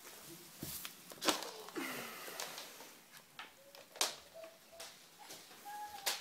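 Phone being handled and moved about: scattered sharp knocks and rustling, with a few short, faint voice-like sounds in between.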